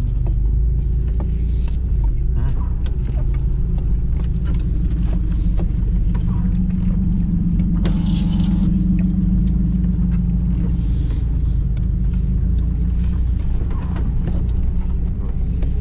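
Off-road 4x4 driving slowly over a rough forest trail: the engine runs as a steady low rumble, with frequent knocks and rattles from the body and suspension. The engine grows louder for a few seconds in the middle, then eases off.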